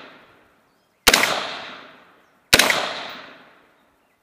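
Scoped rifle fired twice, slow and deliberate, about a second and a half apart at long-range targets. Each crack echoes for over a second before it fades, and the first moment holds the fading echo of the shot before.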